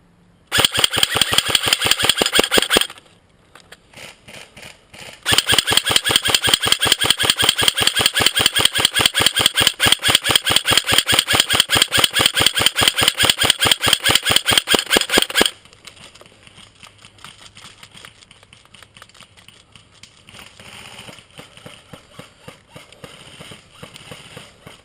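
G&G blowback AK47 airsoft electric gun firing on full auto: a burst of about two seconds, then a long burst of about ten seconds of rapid, evenly spaced shots. Fainter, scattered clicks follow.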